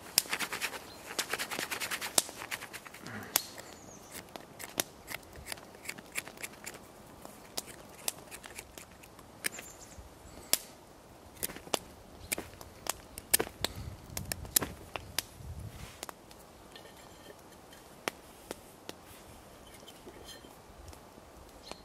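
Blackberry cane being scraped with the back of a knife to strip its thorns: a quick run of scraping strokes at the start, then scattered clicks and snaps as the cane is handled.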